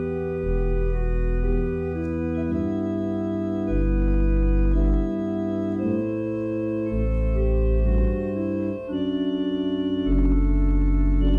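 Organ playing slow, sustained chords over deep bass notes that change every second or two, with a wavering vibrato on some notes.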